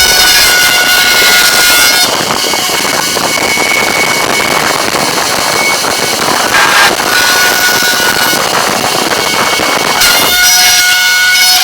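Aluminium door lock-boring machine's motor running at speed, a loud steady whir with faint high tones that come and go.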